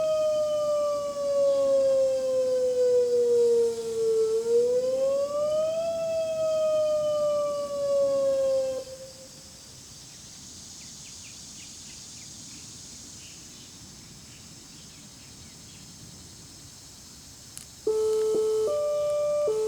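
Homemade electronic siren sounding a wail: a tone glides up quickly and down slowly, twice, then cuts off about nine seconds in. After a quiet stretch of faint outdoor background, the siren starts again near the end on a hi-lo signal, two pitches alternating, each held for under a second.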